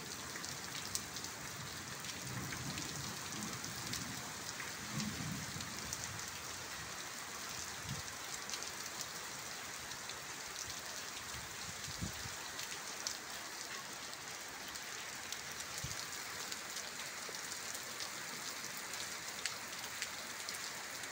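Heavy rain falling steadily onto flooded ground and standing water, with scattered small drop ticks.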